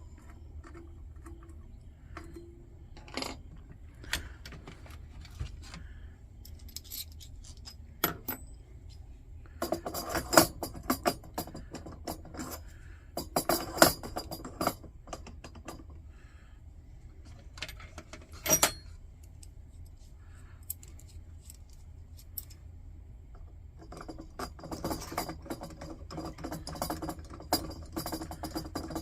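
Small metal parts of a Coleman 222B lantern clinking and rattling as it is taken apart by hand, in scattered bursts of clinks, busiest about ten and fourteen seconds in and again near the end.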